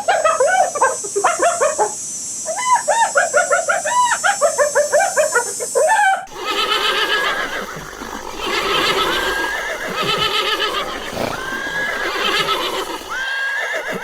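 Animal calls: a fast run of rapidly wavering pitched calls with a hiss behind them, then an abrupt change about six seconds in to a different set of calls with short rising notes over a noisy background.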